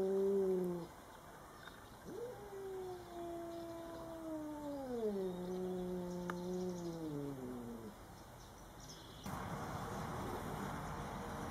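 Cat's territorial growl-yowl: a long, low, drawn-out wail that slides down in pitch in steps and stops about seven and a half seconds in. It follows the end of an earlier wail right at the start. About nine seconds in, a cat gives a steady hiss, a warning in a standoff between two cats meeting for the first time.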